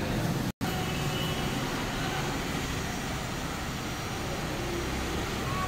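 Handheld electric heat gun running with a steady blowing hiss while it warms protective film on a motorcycle fender; the sound cuts out for an instant about half a second in.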